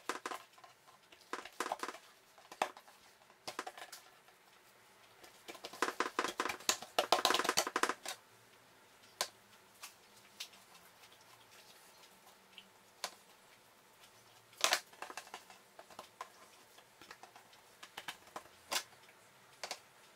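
Hands pressing, slapping and folding oiled dough on a wooden tabletop: scattered soft taps and pats, with a run of quick patting for about two seconds near the middle.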